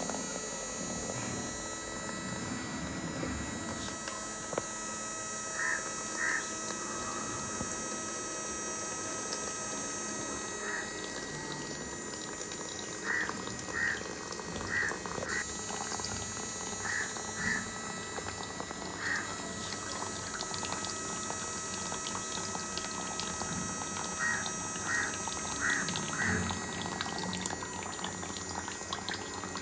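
A thin stream of water from a small homemade battery-powered pump pours steadily into a plastic tub of water, with a faint steady whine behind it. Groups of short, high chirp-like calls come now and then.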